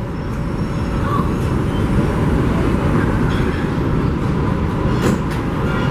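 New York City subway train running along the elevated track into the station, its wheels and motors rumbling and growing louder over the first two seconds, then holding steady. A brief sharp sound comes about five seconds in.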